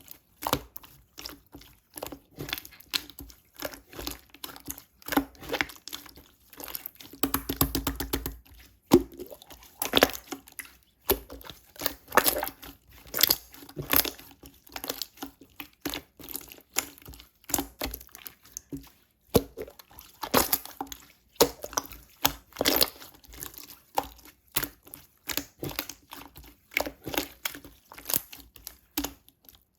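Yellow and pink slime being squished and pressed, making a quick irregular run of sticky, wet clicks and pops.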